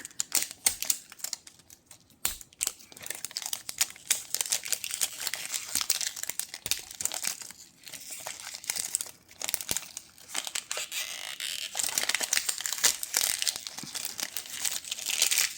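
Crinkling and tearing of the wrapping on a Mini Brands capsule ball as it is unwrapped by hand, a crackly run of rustles and small snaps with a couple of brief pauses.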